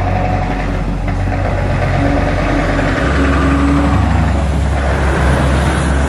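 Scania R650 timber truck's V8 engine running as the empty truck and log trailer drive slowly past close by, growing louder as the truck comes alongside.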